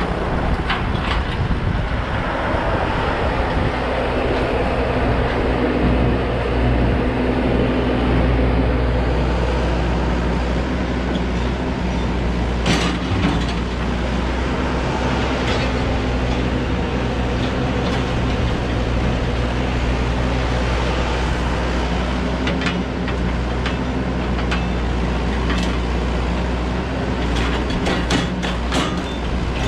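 Excavator's diesel engine running steadily under working load, with scattered sharp cracks and knocks over it, several in quick succession near the end.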